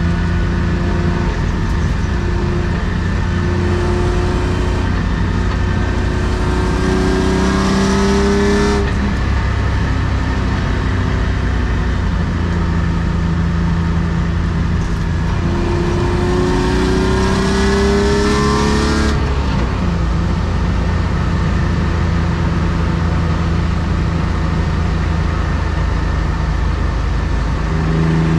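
1993 BMW E36 325i's M50B25 straight-six with aftermarket headers and sport exhaust, heard from inside the car's cabin. It runs steadily with two climbs in engine pitch under acceleration, one about four seconds in and one in the middle, each cut off suddenly after three to four seconds, and another climb begins at the very end.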